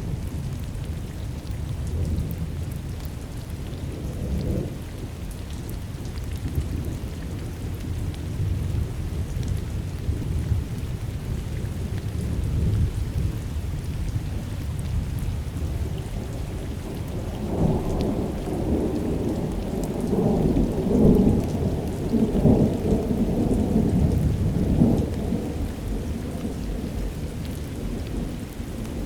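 Thunder rumbling through steady rain, with a louder rolling peal about two-thirds of the way in that swells and fades over several seconds.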